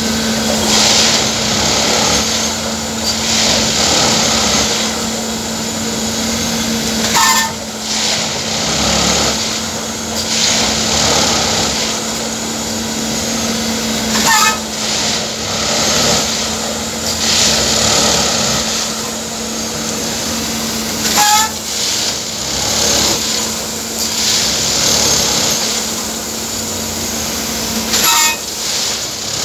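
Railway track tamping machine at work: a steady hum of its engine and hydraulics, with the tamping unit's noise rising and falling in a repeating cycle about every seven seconds. Each cycle ends in a short, sharp sound with a quick falling note.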